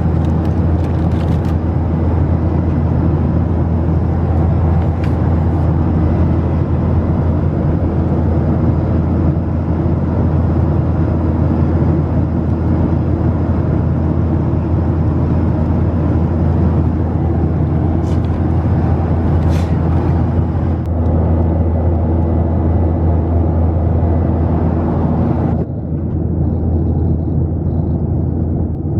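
Steady drone of a Boeing 737-700's engines and airflow heard inside the passenger cabin, a deep hum under a wash of hiss. About 26 seconds in, the hiss suddenly drops away while the low hum carries on.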